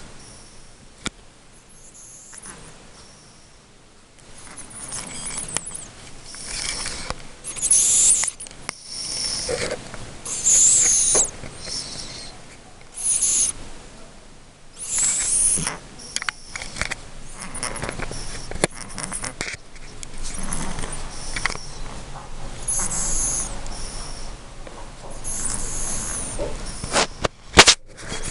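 A domestic cat snoring in its sleep: a high, hissy sound with each breath, coming irregularly about every one to two seconds. A single sharp click near the end.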